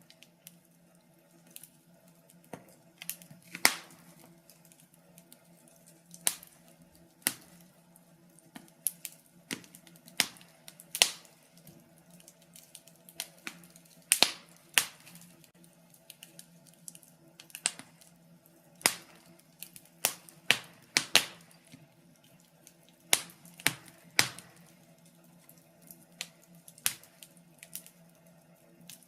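Wood fire crackling in a fireplace: irregular sharp pops and snaps, roughly one a second with some in quick pairs, over a faint steady low hum.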